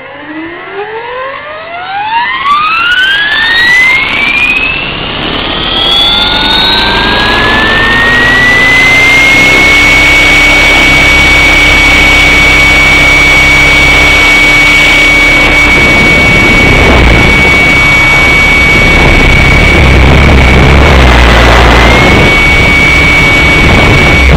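Align T-Rex 600 radio-controlled helicopter spooling up: a whine that rises in pitch over about eight seconds, then holds steady at a high pitch over a rushing noise, dipping briefly once near the end.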